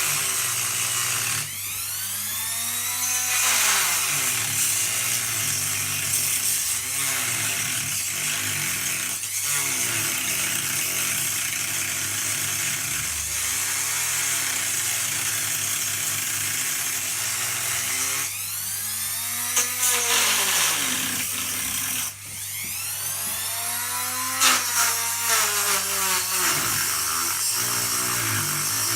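Ryobi rotary tool with a diamond cutting wheel running and cutting into bathroom tiles, its pitch repeatedly sagging and recovering as the blade bites, with a brief drop in sound about 22 seconds in. The owner says the tool's low speed setting no longer works and it runs near full speed.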